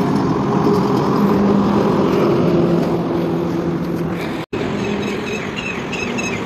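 A heavy truck pulling a low-bed trailer passes on the highway, its diesel engine droning with the pitch sagging slightly as it goes by. The sound cuts out abruptly about four and a half seconds in, then a steadier engine hum follows with short high chirps over it.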